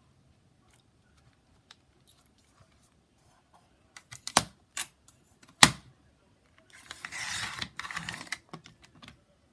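A few sharp clicks and knocks, then a blade rasping through a sheet of paper in two strokes with a short break between them, as black scrap paper is cut.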